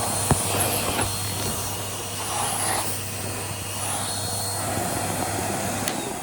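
Henry 160 compact vacuum cleaner running, its motor giving a steady hum and rush of air, with a few light clicks. It is switched off near the end, with a click as the motor cuts and winds down.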